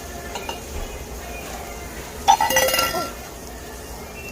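Tableware clinking: a few light taps, then about two seconds in a loud, ringing clatter lasting under a second.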